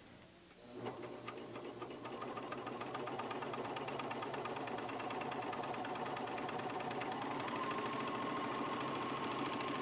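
Pfaff Hobbylock serger starting about a second in and running steadily with a fast, even stitching rhythm as it sews and gathers two layers of fabric through a gathering foot using the differential feed. Its whine steps up in pitch about seven seconds in.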